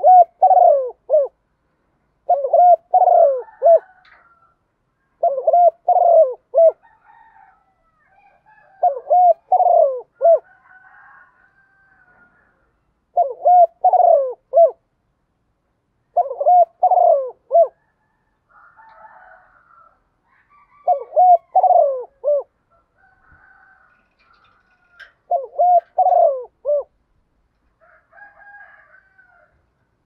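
Spotted dove cooing: eight phrases of a few short, low coos each, repeated roughly every three to four seconds, with fainter, higher calls in the gaps.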